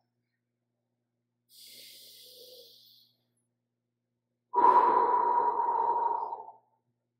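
A man's deep, paced breathing in a breathwork exercise: a soft, hissy breath about a second and a half in, then a loud rushing breath lasting about two seconds.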